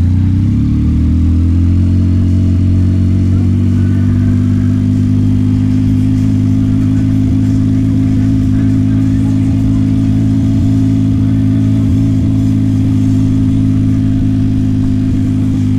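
Yamaha MT-09 SP's three-cylinder engine running under way: the revs rise over the first couple of seconds, then hold at a steady pitch, as when cruising at a constant speed.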